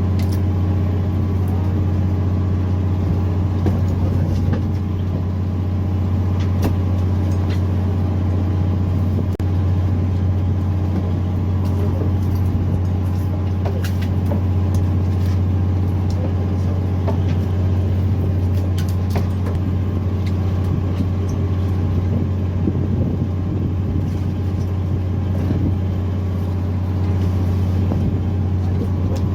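Fishing boat's engine running steadily: a deep, even hum with a few faint scattered clicks and knocks on board.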